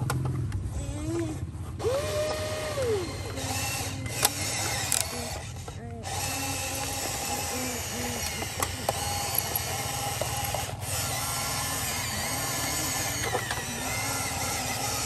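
Electric gear motors of a Huina RC excavator whirring and grinding as the arm and tracks move. Its pitch rises and falls as the motors start and stop, then settles into a steady whine for the second half.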